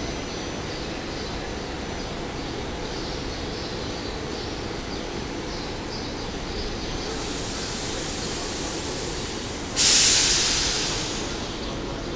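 SEPTA regional rail train rolling along the station track with a steady rumble. About ten seconds in, a sudden loud hiss starts and fades over a couple of seconds.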